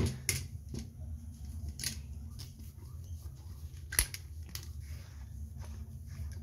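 A few scattered sharp clicks and taps of hands handling objects at a bathroom sink, the loudest about four seconds in, over a steady low hum. No water is running yet.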